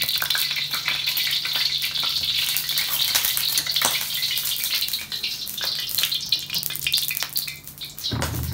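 Hot cooking oil sizzling and crackling in a pan, a steady hiss dotted with sharp pops, ready for the eggs to go in, over a steady low hum.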